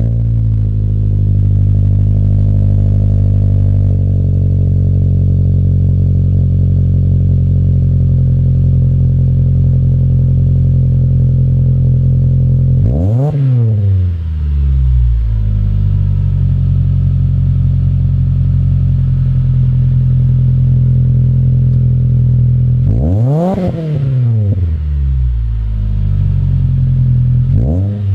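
A 2015 Mitsubishi Lancer GT's four-cylinder engine idles through a Tsudo S2 axle-back exhaust just after start-up. The throttle is blipped three times: twice well into the clip and once briefly near the end, each time a quick rise and fall in pitch.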